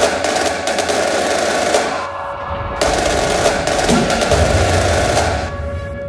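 Music: rapid, dense snare-like drum rolls over a held tone, dropping out for about half a second a little after two seconds in and again near the end.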